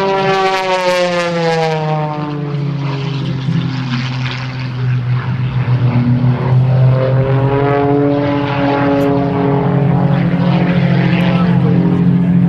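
Modified Pitts Special aerobatic biplane's piston engine and propeller running loud, its pitch falling over the first few seconds, then rising again about six seconds in and holding steady.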